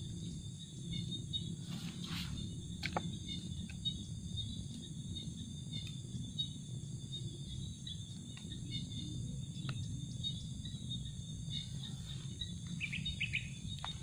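Steady high-pitched chorus of crickets or other insects over a low, steady rumble, with a few light clicks and rustles as bamboo sticks and bait are handled while the bird snare is set.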